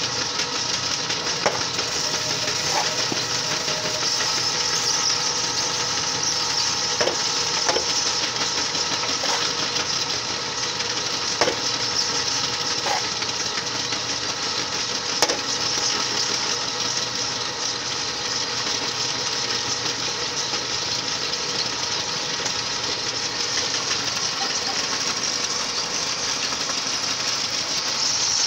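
Motor-driven soil mixing machine running steadily, churning moist clay soil between its rollers, with a few sharp knocks scattered through the steady noise.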